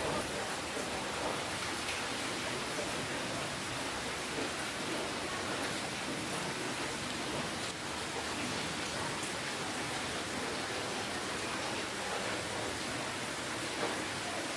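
Steady rainfall: an even hiss of rain, with a few separate drops ticking near the start.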